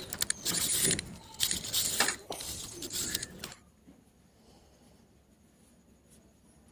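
Scraping and clattering of hard material being handled, in a run of rough, clicky bursts that stops about three and a half seconds in.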